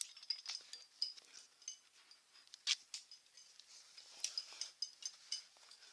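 Metal carabiners and quickdraws clinking and clicking against each other on a climbing harness: a run of irregular sharp clicks and light jingles.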